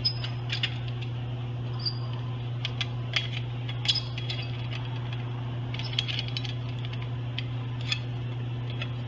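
Metal parts of a windshield-setting tool's roller platform and slide being handled: scattered light clicks and rattles at irregular moments, the sharpest about four seconds in, over a steady low hum.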